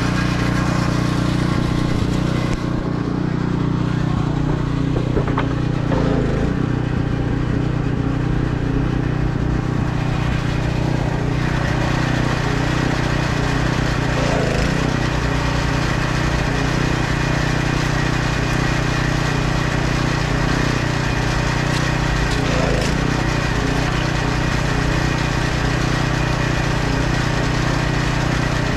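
An engine running steadily at an even speed, a constant drone throughout.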